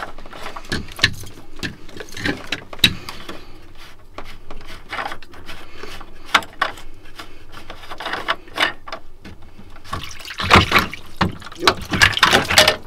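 Seawater spurting up through the open speed-log through-hull as the blanking plug is pulled and the paddlewheel transducer is pushed back in, with plastic clicks and knocks from the fittings. The splashing and handling grow louder and busier near the end as the log is seated.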